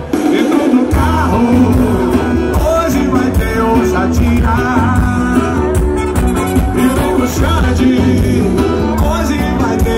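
Live forró band music played loud through a concert PA, with a lead vocalist singing over the band. The bass drops out for a moment at the very start, then comes back in.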